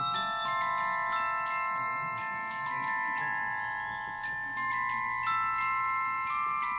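Background music: a slow melody of ringing, bell-like mallet notes, a new note every few tenths of a second, each held and overlapping the next.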